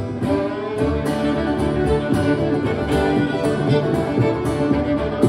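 Two fiddles playing a Celtic reel over a strummed acoustic guitar keeping a steady, driving rhythm.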